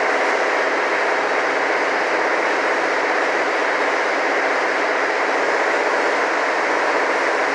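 Steady mechanical drone with a mid-pitched hum, unchanging throughout, typical of body-shop machinery running.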